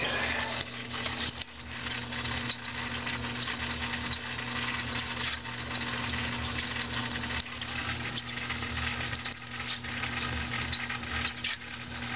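Micro servos of a 3D-printed quadruped spider robot whirring and buzzing as they drive its legs, with many small clicks and rattles from the plastic legs and linkages.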